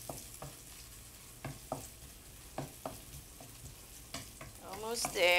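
Chopped garlic and ginger sizzling in hot olive oil in a wok, being lightly browned, while a wooden spatula stirs them with irregular scrapes and taps against the pan.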